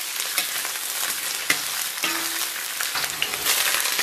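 Scallion and ginger sizzling in hot oil and melted rock-sugar caramel in a wok, stirred with a metal spatula that scrapes and clicks against the pan a few times over the steady sizzle.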